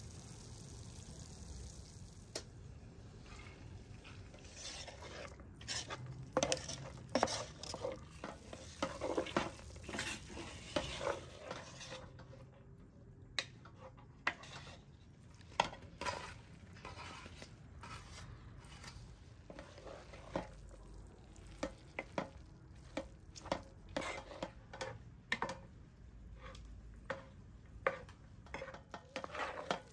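A wooden spoon stirring a thick meat and barberry filling in a metal pot, with irregular knocks and scrapes against the pot that start about two seconds in. A light sizzle of the filling frying on the burner lies underneath.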